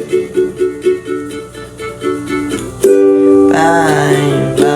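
Ukulele strummed quickly on one chord, the strums thinning out and slowing, then a fresh chord struck about three seconds in and left ringing. A voice joins over the ringing chord near the end.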